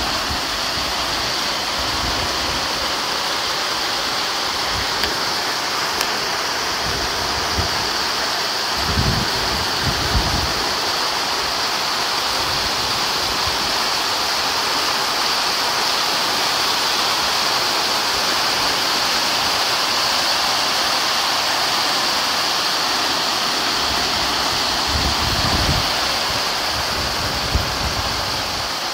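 Heavy rain pouring steadily, a constant hiss of downpour on paving and grass. A few brief low bumps, from wind or handling on the microphone, come near the middle and near the end.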